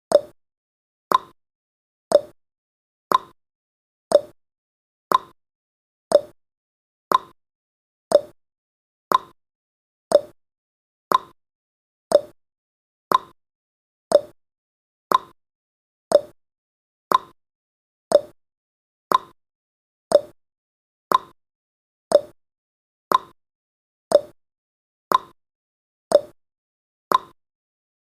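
Countdown timer's clock-tick sound effect: a short sharp tick once a second, alternating between a lower and a higher tick like a tick-tock.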